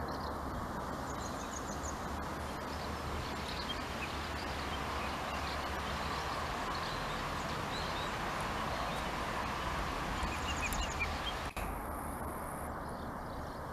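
Outdoor ambience: a steady background hiss with small birds chirping faintly now and then.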